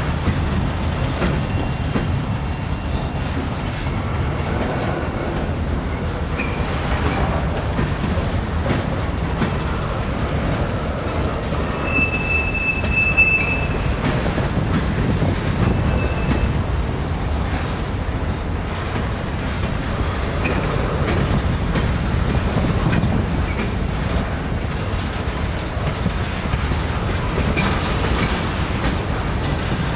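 Freight cars (tank cars, boxcars, a gondola) rolling past with a steady rumble and wheel clatter, and a brief high-pitched wheel squeal about twelve seconds in, with a shorter one a few seconds later.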